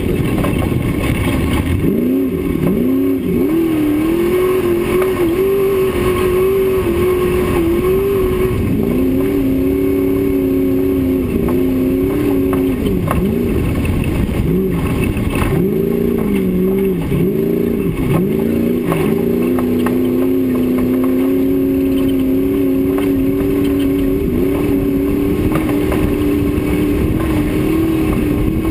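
Off-road race car's engine running hard at speed on a dirt track, its pitch climbing and dropping again and again as the throttle is lifted and reapplied, with several quick dips in a row about halfway through. A steady rush of wind and road noise runs underneath.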